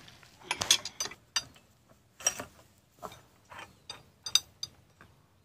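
Irregular metallic clicks and clanks of a wrench working the bolt of a steel pipe clamp, tightening it around a borewell column pipe so it can carry the pipe and pump's weight.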